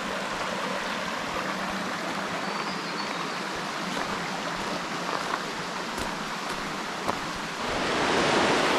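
Creek water rushing over rock slabs, a steady rush that grows louder near the end as the waterfall comes nearer.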